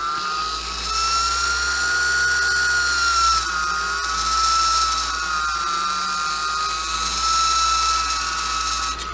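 Water pump of a Renault Duster's H4M 1.6 16V engine heard through a long screwdriver pressed against it, with the microphone to the screwdriver: a steady high whine that wavers slightly in pitch over a low hum. It is the engine's mystery whistle being traced to its source, which other shops had blamed on the pump or the air-conditioning compressor. It cuts off suddenly near the end.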